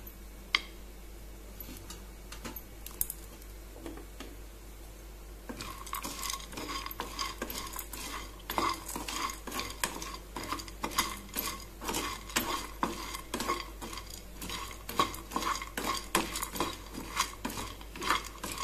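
Spatula stirring almonds, walnuts and roasted chana dal as they roast in a kadai: a steady run of clicks, rattles and scrapes against the pan that starts about five seconds in, after a few single knocks.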